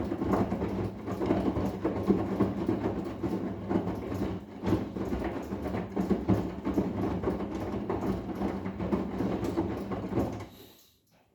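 Arçelik 10121 front-loading washing machine running: a steady motor hum with a fast, irregular clatter of the turning drum and its load. It stops fairly quickly about ten and a half seconds in.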